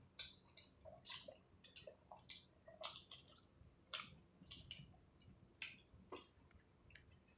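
Close-miked eating sounds: chewing with soft, wet mouth clicks and smacks coming a few times a second, irregularly, all fairly quiet.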